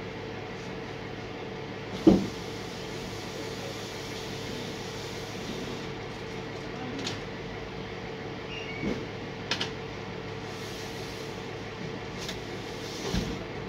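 Truck engine running steadily, with a series of short knocks and clanks over it, the loudest about two seconds in.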